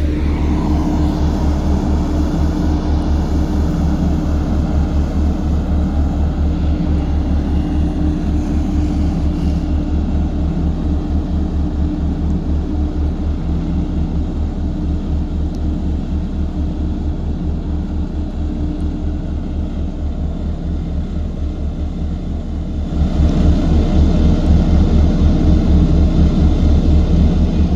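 Heavy diesel construction machinery running steadily with a fast, even low pulsing, growing louder about 23 seconds in.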